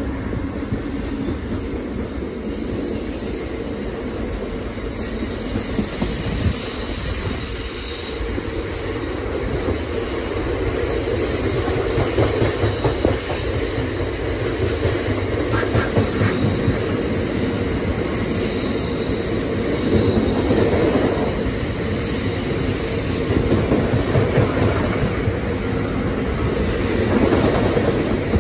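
Freight train wagons rolling past close by: a steady rumble of wheels on the rails with a run of rapid clatter over the joints and thin high wheel squeals now and then.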